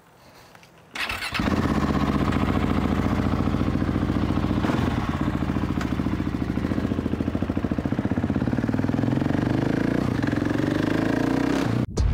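KTM 690 SMC R's single-cylinder engine with an FMF slip-on exhaust, started about a second in, then idling steadily to warm the oil before an oil change. It cuts off just before the end.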